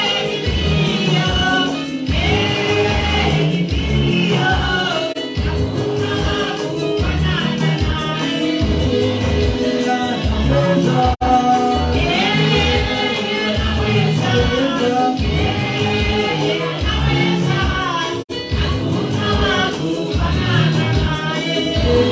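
Gospel praise and worship music: voices singing over a band with a steady beat. The sound cuts out for an instant twice, about halfway through and near the end.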